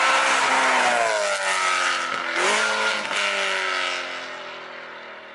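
BMW M3's V8 exhaust as the car drives past at speed. The engine note drops in pitch as it passes, rises sharply about two and a half seconds in, then fades as the car pulls away.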